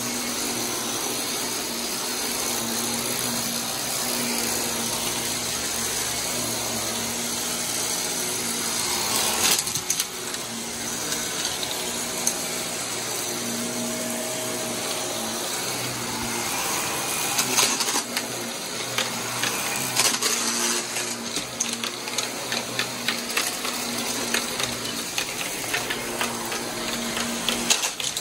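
Blue bagless upright vacuum cleaner running steadily over carpet with a constant motor whine. In the second half there are many scattered clicks and rattles as bits of debris are sucked up.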